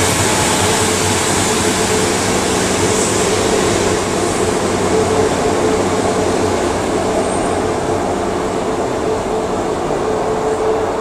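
Class 150 Sprinter diesel multiple unit moving away under power, its underfloor Cummins diesel engines running with a steady drone and a held whine, slowly fading as it recedes.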